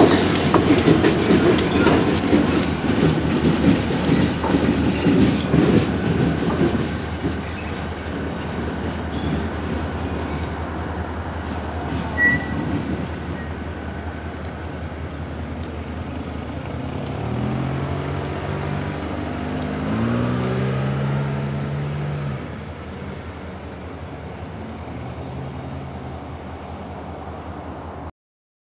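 Two EMD SD40-series diesel-electric locomotives, each with a 16-cylinder two-stroke engine, running light past at close range: loud engine rumble and wheel clatter at first, fading as they move off into the yard. A short wheel squeal comes near the middle. About two-thirds of the way through, the engine note rises and shifts in pitch before settling.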